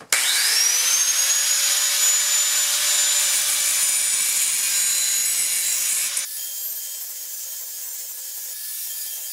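Electric angle grinder spinning up with a rising whine and grinding the cutting edge of a steel lawn mower blade clamped in a vise to sharpen it. About six seconds in the grinding gets quieter and the grinder runs on more lightly.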